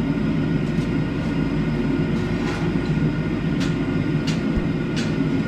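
Steady roar of the forge furnace, with a few light metallic clinks of tools being handled.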